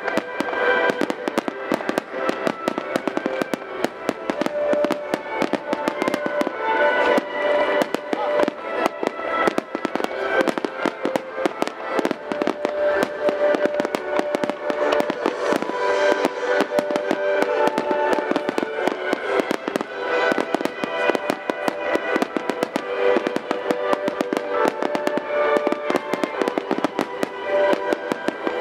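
Fireworks barrage: a dense, continuous run of bangs and crackles from many shells bursting at once, with music playing throughout.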